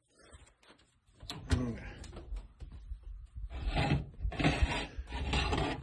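A hot baking stone being pulled out of the oven and set on the stovetop, with the oven door and rack handled: a run of knocks and clatter, then three longer scraping sounds.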